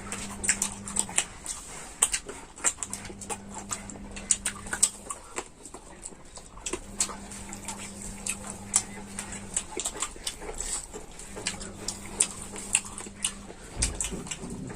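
Close-miked eating of chicken: irregular wet chewing, crunching and lip-smacking clicks, with a low hum that comes and goes in stretches of about two seconds.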